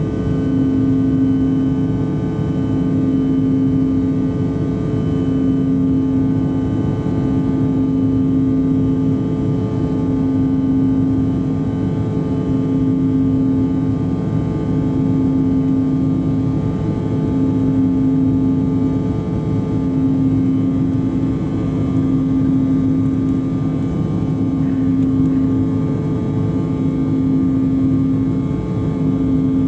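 Steady cabin drone of a Bombardier CRJ-900 in flight, heard from inside the cabin: its two rear-mounted GE CF34 turbofan engines whine with several steady tones over a rush of airflow. A low hum pulses about every two seconds throughout.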